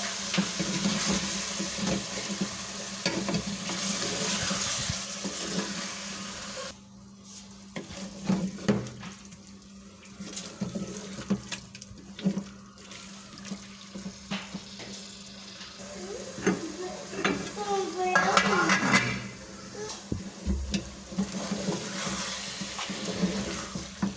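Kitchen work sounds: a steady hiss that cuts off suddenly about seven seconds in, then scattered clinks and scrapes of utensils and dishes, busiest a little past the middle, over a steady low hum.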